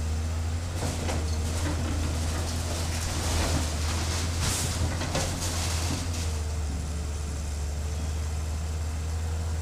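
Hydraulic excavator's diesel engine running steadily while the machine tears down a building, with a few seconds of cracking and crashing of wood and sheet-metal debris starting about a second in and dying away about six seconds in.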